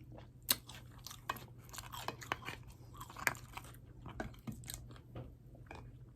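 Close-miked chewing and biting into food: irregular crunches and wet mouth clicks from eating, over a faint steady low hum.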